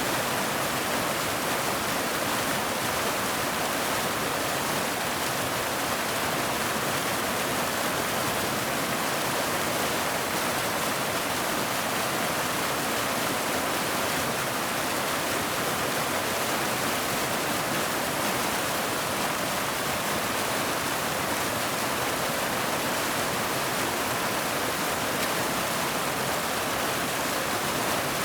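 Waterfall: a steady, even rush of falling, splashing water that stays unchanged throughout.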